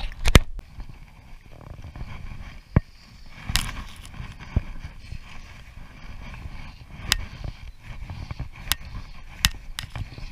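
Handling noise on an action camera: a sharp knock near the start, then scattered clicks and taps over a steady low rumble.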